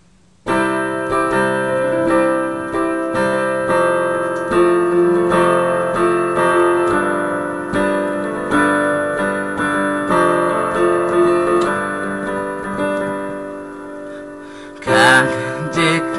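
Solo piano playing the introduction of a song, with repeated chords struck in a steady rhythm, getting louder again near the end.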